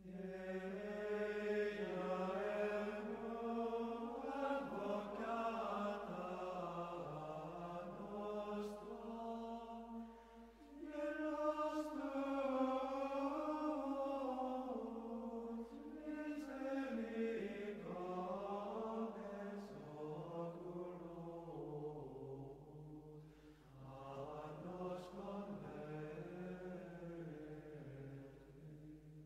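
Slow sung chant in long, flowing melodic phrases of held notes, pausing briefly about ten seconds in and again around twenty-three seconds.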